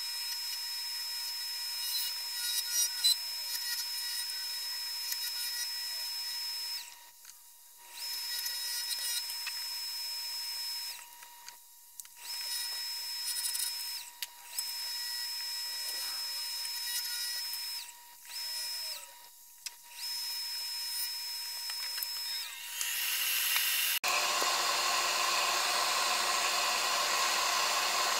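Wood lathe running with a steady whine while a turning tool cuts a small curly maple workpiece, with scratchy cutting noise; the sound drops out briefly several times. About 24 seconds in it changes to a louder, even rushing noise as a cloth is held against the spinning workpiece.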